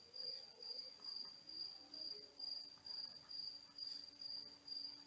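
Faint insect chirping: one high, even chirp repeating steadily about twice a second.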